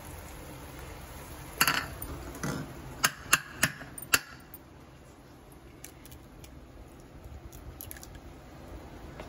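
A short clatter, then an egg tapped sharply against the rim of a ceramic bowl four times to crack its shell, followed by faint ticks as the shell is pulled apart.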